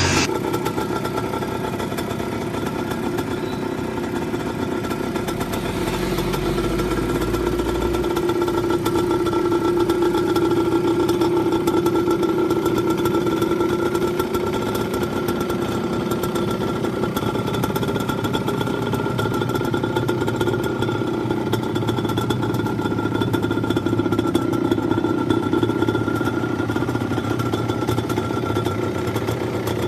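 Original Yamaha DT two-stroke motorcycle engine idling steadily.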